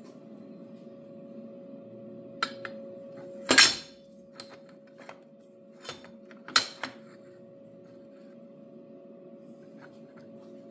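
Lengths of square metal tubing being set down into a jig on a perforated metal welding table: a handful of metal clanks and clinks, the two loudest about three and a half and six and a half seconds in, over a steady hum.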